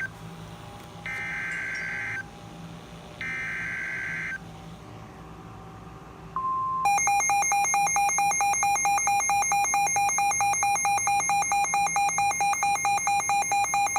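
NOAA Weather Radio SAME alert header: two raspy digital data bursts about a second apart. About six seconds in, a brief steady warning alarm tone starts. About seven seconds in, the weather radio receiver's own loud, rapidly pulsing electronic alarm beep takes over, signalling that a new warning is coming in.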